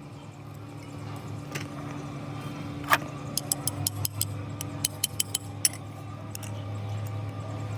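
An engine running steadily at low speed, growing a little louder about halfway through, with sharp metallic clinks of metal parts or tools, in a cluster around the middle.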